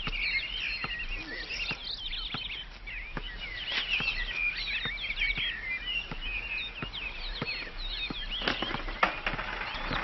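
Birds chirping and twittering, many short quick calls overlapping throughout, with light ticks scattered among them.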